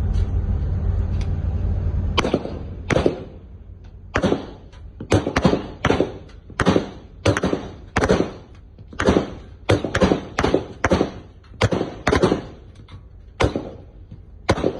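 Rifle fire: a long run of single gunshots, one to two a second at uneven spacing, about twenty in all. A low steady rumble stops about two seconds in, just before the first shot.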